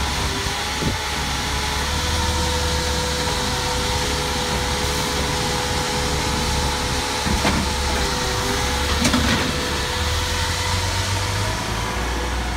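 Garbage truck's engine idling, a steady low hum with a steady whine over it. Two faint clicks come about seven and nine seconds in.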